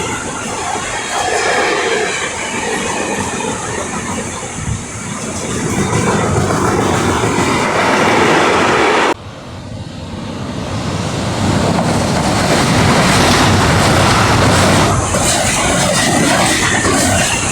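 Train running on the rails with wheels clattering over the track. The sound breaks off suddenly about nine seconds in, then builds back up.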